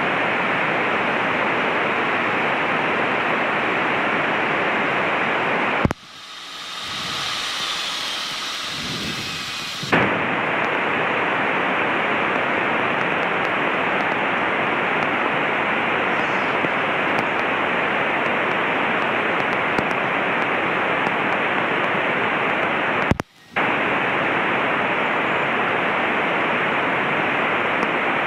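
Steady loud static hiss from the Cessna 152's COM radio, which the pilot thinks is slowly dying. About six seconds in the static cuts out for about four seconds, and it drops out again for a moment near the end.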